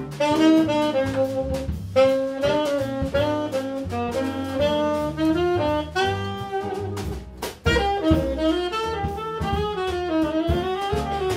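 Small jazz band playing live: a tenor saxophone plays a melodic line over piano, double bass and a drum kit with cymbals.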